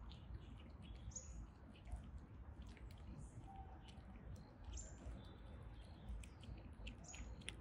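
Cats crunching dry kibble, a run of faint small clicks, while a bird gives a few short, high chirps in the background.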